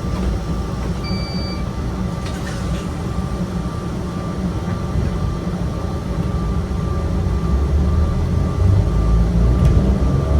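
Yokkaichi Asunarou Railway 260 series narrow-gauge electric train standing, then starting to pull away: the low growl of its nose-suspended traction motors builds over the last few seconds as it gathers speed.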